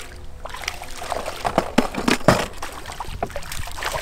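A hooked fish splashing and thrashing at the water's surface as it is played in, a quick run of irregular splashes that is loudest about two seconds in.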